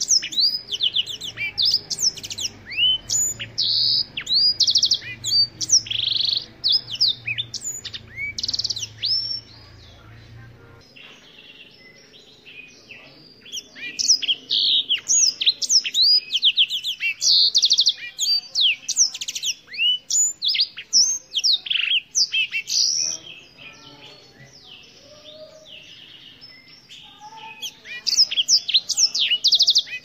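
Black-throated canary singing in bouts of rapid trills and down-slurred whistled notes. A song bout is followed by a pause of a few seconds about ten seconds in, a second bout follows, and the song picks up again near the end.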